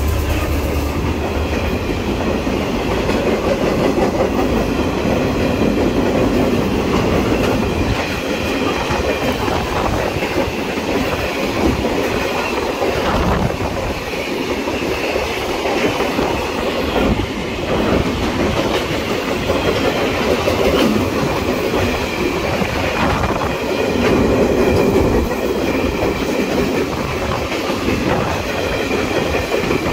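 Empty steel-wagon freight train rolling past at close range, the wagons' wheels clattering over the rail joints in a loud, steady run.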